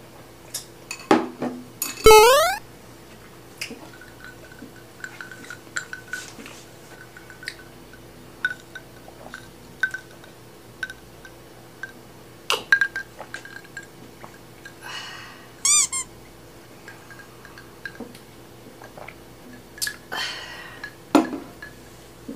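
Close-miked eating sounds: noodles being slurped, with scattered wet mouth clicks and smacks from chewing. Two short squeaky, whistling slurps stand out, one about two seconds in and one near the middle, with light clinks of chopsticks against a glass bowl.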